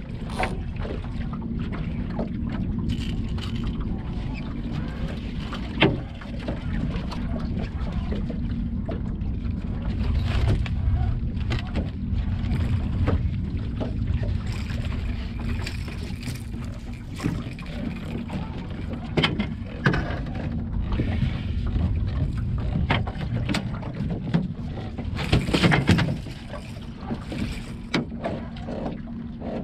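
Boat motor running steadily at low speed, with scattered knocks and clicks of gear being handled in the boat. There is one sharp knock about six seconds in and a louder clatter near the end.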